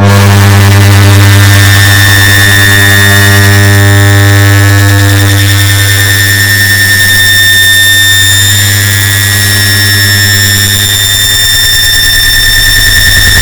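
Air conditioner start-up sound, layered and amplified into a loud, distorted, steady drone with a deep hum and a high whine; the lower tones thin out about eleven seconds in.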